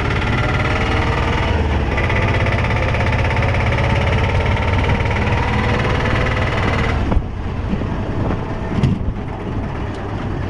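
Auto rickshaw (tuk-tuk) engine running steadily under a passenger, with a strong low rumble. About seven seconds in it eases off to a quieter, uneven running with a few knocks.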